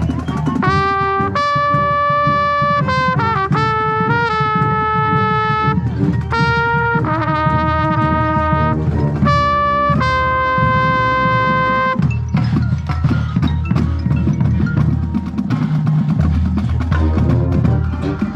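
Marching band playing, with a trumpet right at the microphone playing a melody of held notes over mallet percussion and drums. About twelve seconds in, the close trumpet line stops and the rest of the ensemble carries on with heavy low brass.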